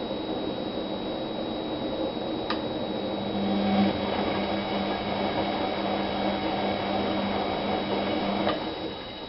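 Washing machine running: a steady motor hum with a high electrical whine. There is a click about two and a half seconds in, the motor hum grows stronger a moment later, and after another click near the end the running sound dies away.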